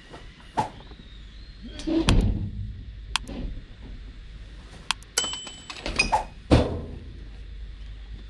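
Rubbish being tipped into metal skip bins and their lids handled: several separate thuds and knocks. About five seconds in come two sharp clicks and a short bright ding that rings for under a second.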